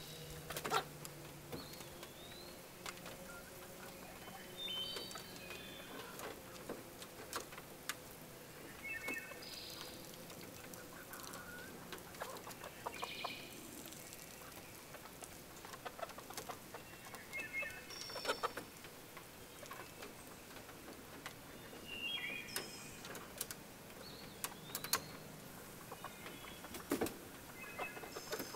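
Domestic hens clucking, with short calls every few seconds and scattered sharp taps and clicks between them.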